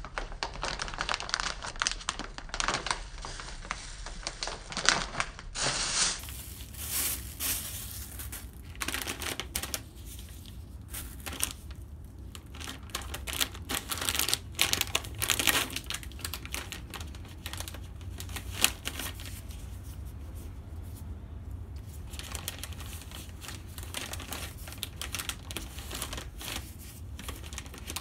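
Plastic packet of wet wipes for screen doors crinkling and crackling in hands wearing disposable plastic gloves, as the packet is handled, opened and a wet wipe is pulled out. Irregular close-up crackles and clicks, busiest near the start and again towards the end.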